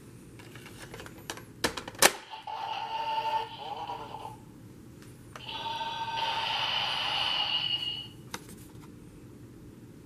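Kamen Rider advent-card visor toy: two sharp plastic clicks as the card mechanism is worked, then two electronic sound effects with a voice call from its small speaker, each about two to three seconds long.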